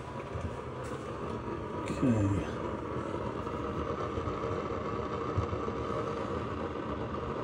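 A steady mechanical hum, like a machine running, with a short falling tone about two seconds in.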